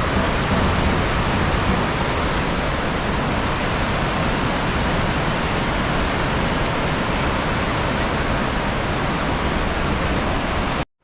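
The Rhine Falls: a large waterfall's steady, loud rush of falling water. It cuts off abruptly near the end.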